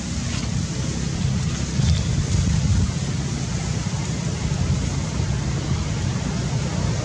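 Steady low, gusting rumble of wind buffeting the microphone outdoors, with no clear animal calls.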